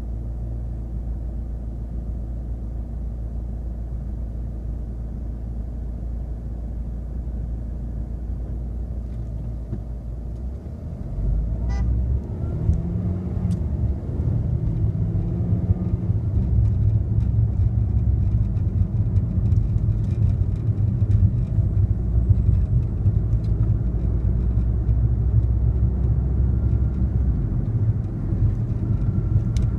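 Car engine and road noise heard from inside the car: a low steady rumble while stopped in traffic, then about eleven seconds in the car pulls away, the engine note rising as it accelerates, and settles into a louder rumble of steady driving.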